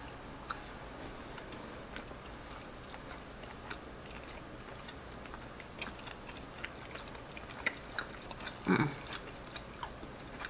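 Two people quietly chewing soft, sticky mochi rice cakes with peanut butter filling: faint wet mouth clicks and smacks scattered throughout. One short low hum of a voice comes about three-quarters of the way through.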